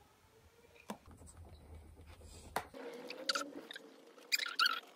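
Circuit Scribe conductive-ink rollerball pen scribbling on paper as circles are filled in: faint scratchy strokes that grow louder and busier in the second half, with a couple of sharp clicks.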